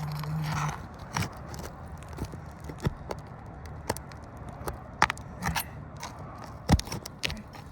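A metal roof snake scraping and clicking against asphalt shingles and roofing nails as the nails under a sealed shingle are worked loose, in a string of irregular sharp clicks and knocks, the loudest near the end. A brief low hum at the very start.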